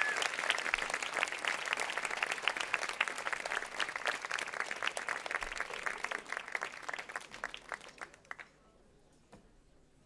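Audience applauding, a dense patter of clapping that thins and dies away about eight seconds in.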